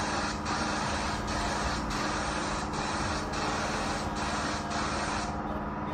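Gravity-feed spray gun spraying two-pack epoxy primer: a steady hiss of atomising air with brief dips. The hiss cuts off about five seconds in as the trigger is released. A steady low hum runs underneath.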